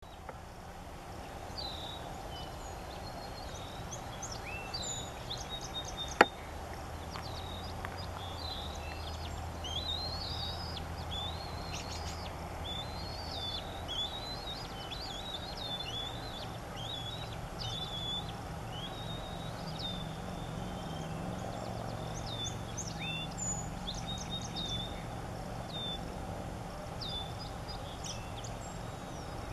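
Young bald eagle calling from the nest: a long, irregular run of short, high chirps and whistling squeals over a steady low background rumble. A single sharp click about six seconds in.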